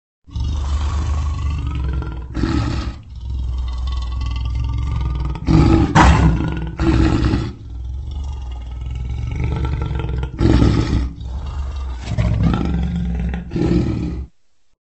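Male lion roaring: a long, deep, continuous rumble with about six louder roars rising out of it, cut off suddenly near the end.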